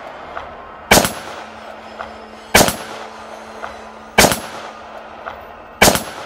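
Revolver shots fired one after another, four of them about a second and a half apart, each a sharp crack with a short echoing tail.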